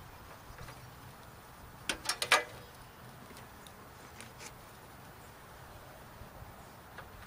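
A quick run of three or four sharp clicks and knocks about two seconds in, from a beekeeper's hands on a wooden trap-out nuc box as he handles it to open it, with a couple of fainter ticks later over a low steady background.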